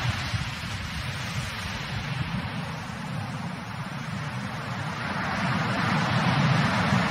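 Heavy sea surf breaking and washing over rocks: a steady rush of water that eases off in the middle and swells again near the end.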